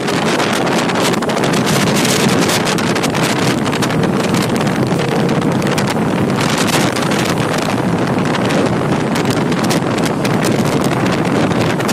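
EMU local train running past close by: a loud, steady rush of steel wheels on rail with frequent clicks and clatter, and wind buffeting the microphone.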